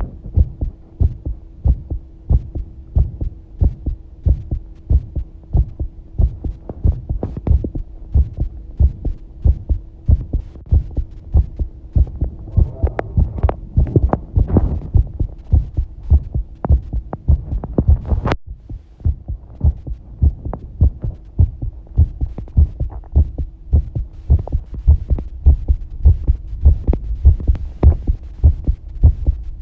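A person's heartbeat, picked up close to the body while bathing: steady, regular low beats with a constant low hum underneath. The sound breaks off for an instant about eighteen seconds in.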